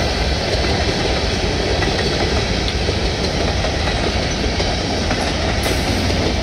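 Freight train of covered hopper cars rolling past close by: a steady, loud rolling noise of steel wheels on the rails.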